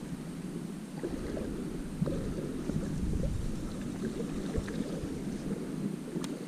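Low, steady outdoor rumble of water moving around a wading angler and wind on the microphone, with a few faint clicks.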